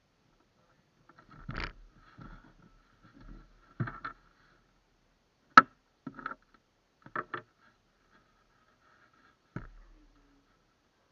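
Scattered knocks, bumps and short scrapes of fishing gear being handled in a small boat, with one sharp loud knock about halfway through.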